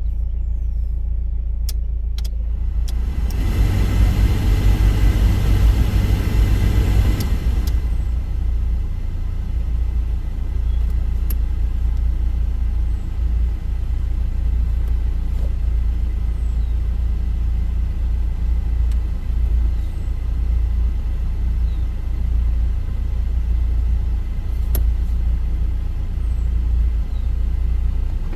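1993 Mazda Miata's four-cylinder engine idling, heard from inside the cabin, with a rush of air from the heater blower for a few seconds near the start and a few sharp clicks as the HVAC controls are worked.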